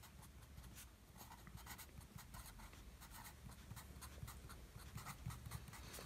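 Faint scratching strokes of a felt-tip pen writing letters on paper, many short strokes in quick succession.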